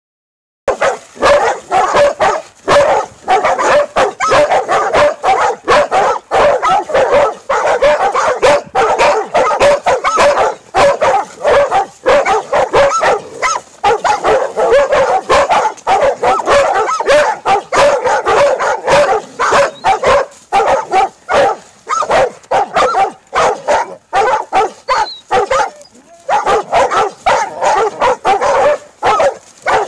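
Several Catahoula leopard dogs baying at a cow: rapid, overlapping barks with hardly a pause, holding the cow at bay. There is a brief lull near the end before the barking picks up again.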